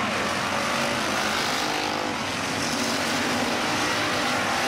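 A pack of IMCA Hobby Stock race cars running together, several engines at different pitches rising and falling.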